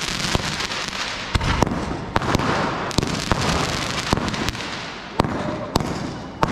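Diwali firecrackers and fireworks going off: about a dozen sharp bangs at uneven intervals over a continuous hissing crackle.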